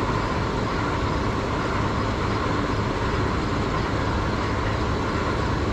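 A steady mechanical drone: a low hum under an even hiss, unchanging throughout.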